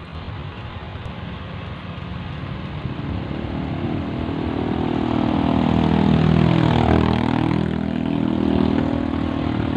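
A motor vehicle's engine passing close by: it grows louder, is loudest about seven seconds in, then eases off as it goes past.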